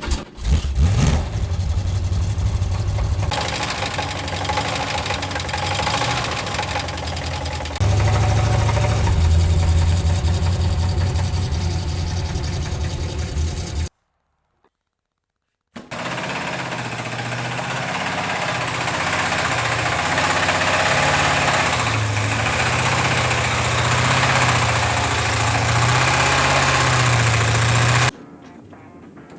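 Pontiac 350 V8 running at idle with a knock from a failing connecting rod bearing. The running is cut into several clips, with a silence of about two seconds halfway through.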